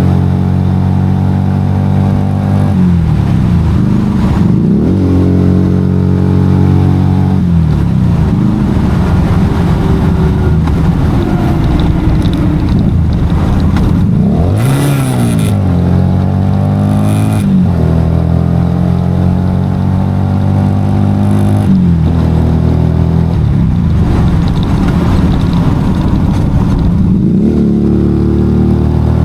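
Motorcycle engine running under way, its pitch dropping and climbing again several times as the rider shifts gears and changes speed.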